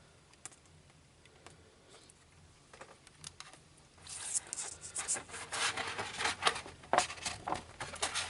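Hands handling small plastic model parts: a few faint clicks, then from about four seconds in a dense run of rustling, scratching and clicking.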